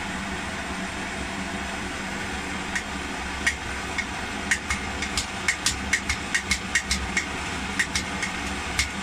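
Jumbo BK1 pressurised kerosene blowtorch burning steadily while its burner tubes are still warming up and its flame turns bluer. From about three seconds in, sharp clicks come two or three a second.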